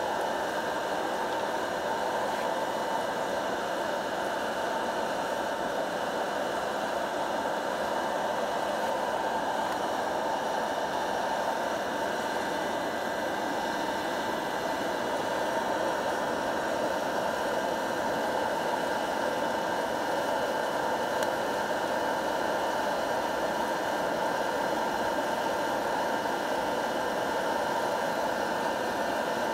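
Hot-air blower of an electric coffee-bean roaster running continuously, a steady, even blowing noise.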